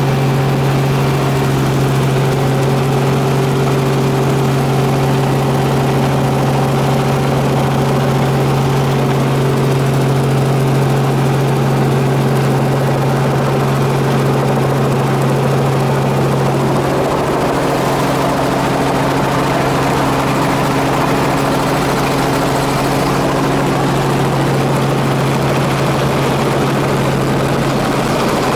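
Helicopter engine and rotor running steadily in flight, heard from inside the cabin as a constant low drone. A little over halfway through, more rushing noise joins in for several seconds before it settles again.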